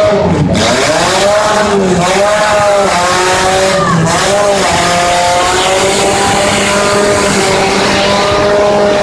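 Demolition derby car engines revving. One engine's pitch drops and swings up and down several times in the first half while another holds a steady drone.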